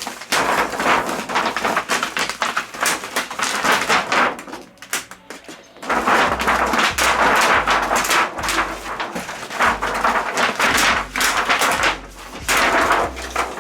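Rapid clicks, taps and rustling of plastic and metal TV parts being handled during reassembly of an LED TV's backlight, with a brief lull about four and a half seconds in.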